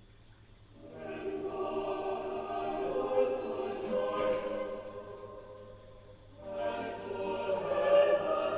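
A group of voices chanting liturgical psalmody in plainsong style on steady held pitches. One phrase begins about a second in, there is a short break after about six seconds, and the next phrase follows.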